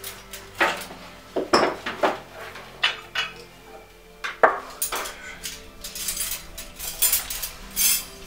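A series of irregular metal clanks and scrapes from a brick wood cookstove: the cast-iron firebox door being opened and a metal poker knocking and raking the burning wood inside the firebox.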